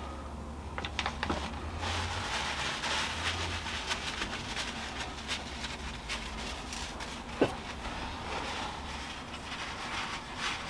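Paper soaked with vegetable oil being scrunched into a ball by hand, a dense run of crinkling and crackling, with one sharp tap about seven seconds in.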